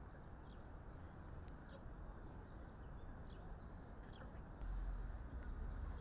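Faint outdoor ambience: a low steady rumble with a few faint bird chirps scattered through it. The rumble gets louder about four and a half seconds in.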